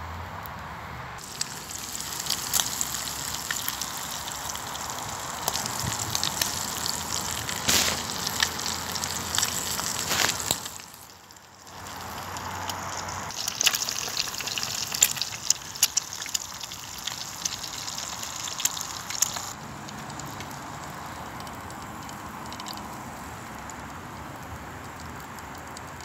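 Eggs frying in hot fat in a metal tin over a campfire: a steady sizzle with sharp pops and crackles of spitting fat. It comes in two stretches with a short break near the middle, then drops to a quieter background for the last few seconds.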